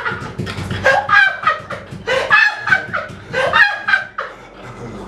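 A group of young men laughing hard: high-pitched, cackling laughter in quick pulses, coming in three strong bouts and dying down near the end.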